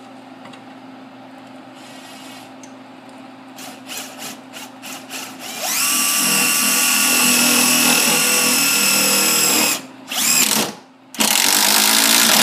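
Cordless driver driving large screws through an electric motor's mounting foot into a wooden workbench. It gives a few short bursts, then a steady run of about four seconds whose whine rises as it speeds up, then two more short runs near the end.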